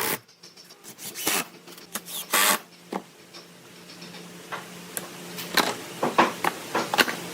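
Workshop handling sounds: scattered knocks and clicks with a few short scrapes, like tools and wood being picked up and worked by hand, over a faint steady hum.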